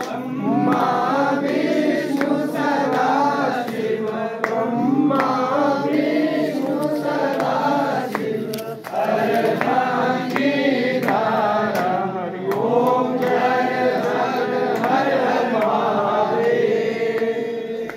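A group of voices singing a Hindu aarti hymn to Shiva together, in long sung phrases.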